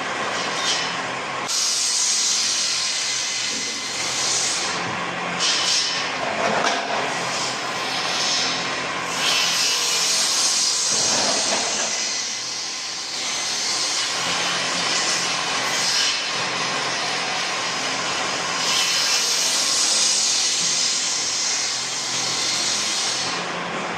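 Sawmill running and cutting wood: a loud continuous noise that swells and eases every few seconds.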